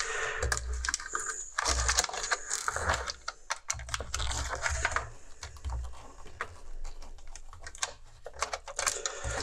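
Rapid, irregular clicking and rattling of small plastic and metal parts being handled during the disassembly of an electronic unit, with dull knocks on the bench in the first half.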